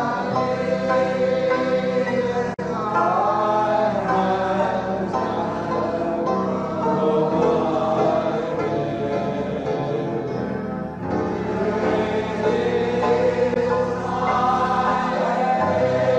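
A choir or congregation singing a gospel worship song together, with sustained low accompanying notes; the sound drops out for an instant about two and a half seconds in.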